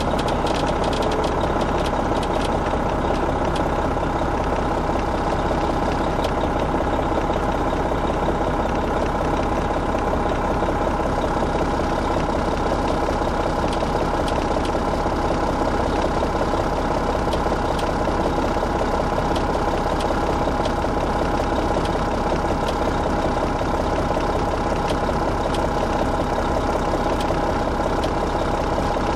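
Detroit Diesel Series 60 diesel engine of an MCI D4500 commuter coach idling steadily, with no change in engine speed.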